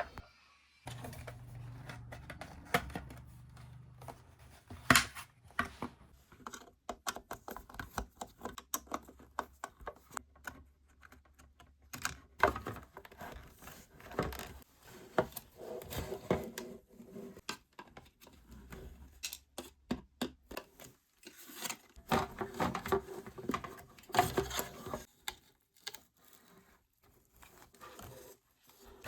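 Irregular clicks, snaps and scrapes of plastic parts being handled as a Panasonic cordless stick vacuum's housing is taken apart, with busier bursts of rattling and scraping partway through.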